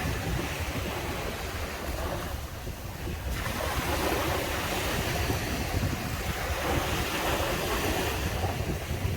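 Ocean surf breaking and washing up a sandy beach, easing briefly about two seconds in before the next wave rushes in. Wind rumbles low on the microphone underneath.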